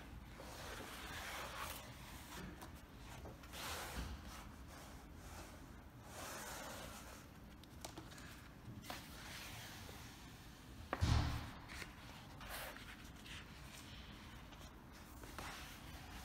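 Large vinyl-coated wallpaper sample pages being handled and turned in a catalogue book: soft rustling swishes of paper several times, with a louder thump about eleven seconds in.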